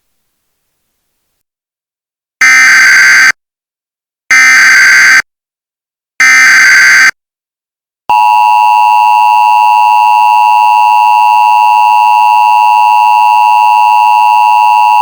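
Emergency Alert System tones: three short data bursts of the SAME header, about two seconds apart, then the steady two-tone EAS attention signal (853 and 960 Hz) starting about eight seconds in.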